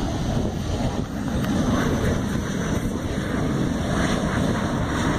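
Wind buffeting the microphone over a steady low rumble of aircraft engines at the airfield.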